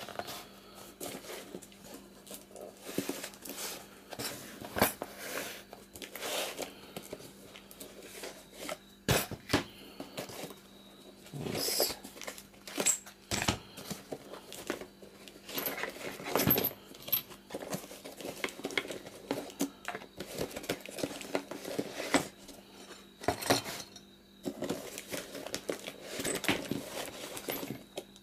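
A parcel being unpacked by hand: wrapping paper and plastic crinkling and tearing, with irregular clinks and knocks of small metal lathe tools and files being handled and set down.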